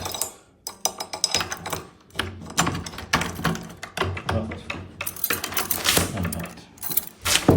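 Keys jangling and repeated metallic clicks of a freshly serviced deadlock being worked with its key, the mechanism clicking over as it turns.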